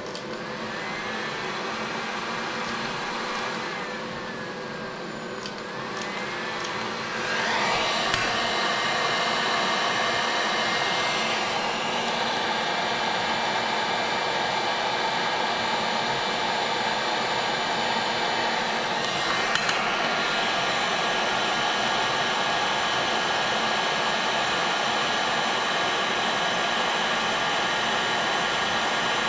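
Electric heat gun blowing hot air steadily, preheating hardened steel hay rake tines before welding. It gets louder about seven seconds in and then holds steady.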